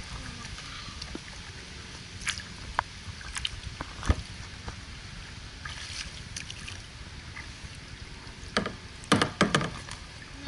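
Double-bladed kayak paddle strokes dipping and splashing in the river, with sharp knocks now and then and a cluster of them near the end, over a steady low rumble.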